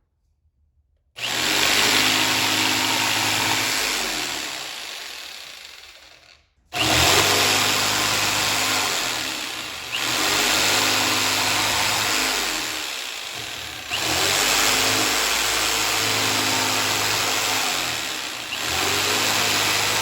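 Jigsaw cutting slots into 3/4 inch plywood, starting about a second in and running loud in five runs of a few seconds each, with short dips between runs.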